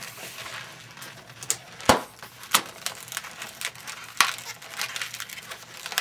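Latex modelling balloons being twisted and rubbed against each other in the hands: a run of short crackling clicks, with a sharper knock about two seconds in and a few more scattered after it.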